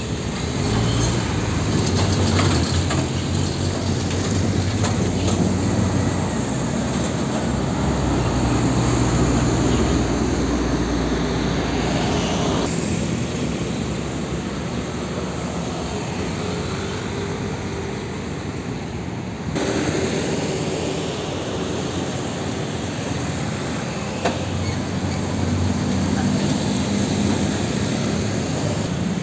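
Street traffic dominated by heavy diesel trucks. A Hino fuel tanker truck's diesel engine runs as it drives past at the start. Lighter car and motorcycle traffic follows, and another fuel tanker truck's diesel engine passes close near the end. The sound changes abruptly twice along the way.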